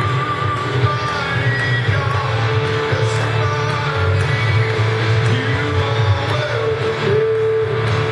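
Live church worship music from a band, with guitar prominent over a steady bass line.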